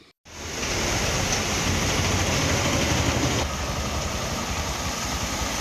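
Motor vehicles driving through a flooded street: a steady wash of splashing and tyre noise over a low engine rumble. The mix shifts slightly about three and a half seconds in.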